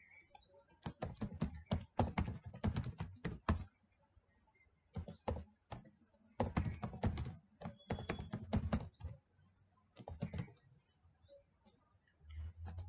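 Computer keyboard being typed on, quick runs of key clicks in several bursts with short pauses between them.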